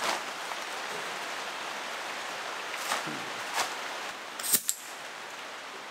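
Steady hiss of heavy rain, with a few faint knocks and one short, sharp, high-pitched hiss about four and a half seconds in.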